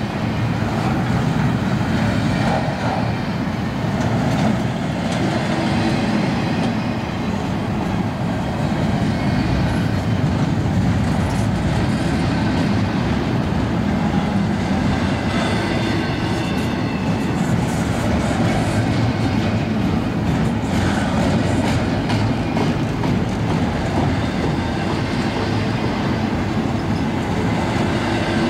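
Double-stack intermodal freight train passing at close range: a steady rumble and rattle of steel wheels on rail as the loaded well cars roll by, with faint high wheel squeal coming and going.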